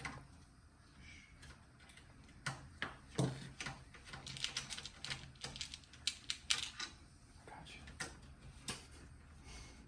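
Irregular clicks and light knocks of hard computer parts being handled, with a quick run of ticks in the middle, as a fan is taken off a PC build.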